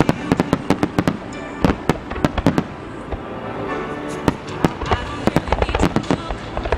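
Wide rapid-fire fireworks finale (a Japanese starmine): dozens of sharp shell bursts in quick, irregular succession, with music playing beneath.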